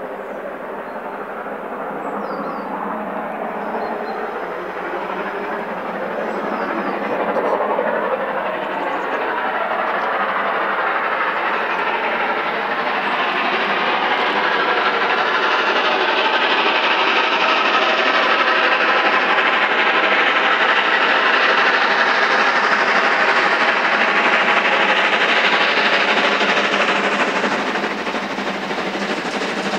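Steam locomotive hauling a train of passenger coaches, approaching under power with a heavy exhaust plume. Its running sound grows steadily louder over the first fifteen seconds or so, then holds and eases slightly near the end.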